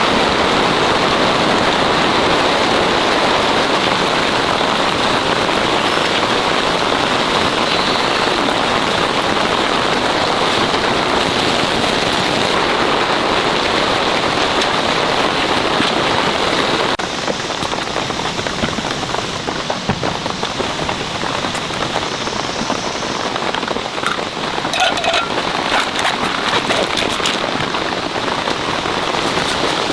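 Heavy rain pouring steadily onto a tent. About halfway through it changes abruptly to a slightly quieter, more broken patter of separate drops.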